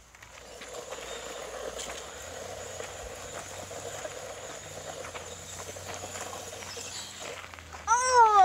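Toy RC car driving: a steady whir from its small electric motor and wheels, coming up about half a second in. Near the end a person's voice calls out loudly, falling in pitch.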